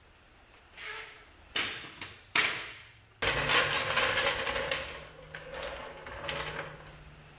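Three sharp metal clanks, then a steel floor jack rolled across a concrete floor with a rattling rumble that starts suddenly about three seconds in and tapers off.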